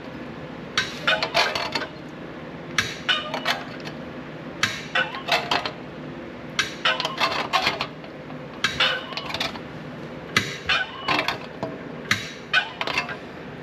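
Sheet-metal shrinker-stretcher with shrinking jaws clanking as a steel patch-panel lip is worked through it, a short cluster of metallic clicks about every two seconds, seven in all. The jaws are shrinking the metal to curve the piece.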